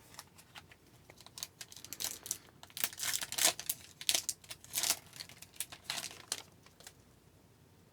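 A foil wrapper on a pack of Upper Deck hockey cards being torn open and crinkled by hand, a patchy run of crackles and rustles.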